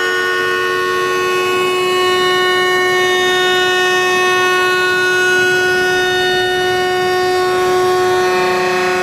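CNC router spindle running with a steady whine of several held tones; a lower tone joins near the end.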